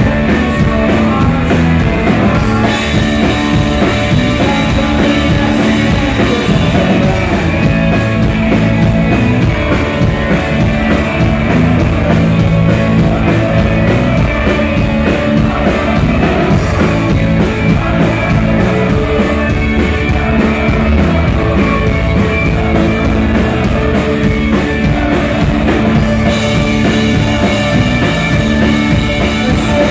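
Live rock band playing loudly: electric guitars, bass guitar and drum kit together in a steady rhythm.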